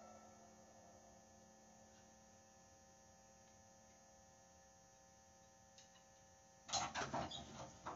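Faint steady hum with the last of a ringing tone from the drum kit dying away, then near the end a sudden run of loud, sharp knocks and clatter from the kit.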